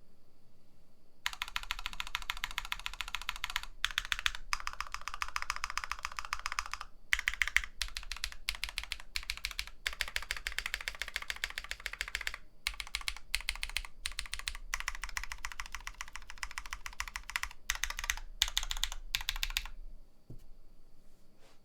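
Typing on a Nullbits Nibble65 mechanical keyboard with tactile Drop Holy Panda switches, an FR4 plate and GMK keycaps: quick runs of keystrokes broken by short pauses. The typing starts a second or so in and stops about two seconds before the end.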